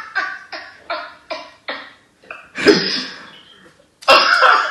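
A man laughing in a run of short 'ha-ha' bursts that fade away, then a louder burst of laughter about two and a half seconds in and another near the end.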